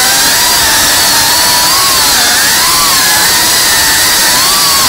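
A 3.5-inch cinewhoop FPV drone's brushless motors and propellers, whining loudly and steadily, the pitch wavering up and down as the throttle changes.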